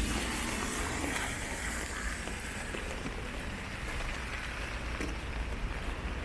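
Steady outdoor city ambience heard while walking: an even, rain-like hiss over a low rumble, with a few faint ticks.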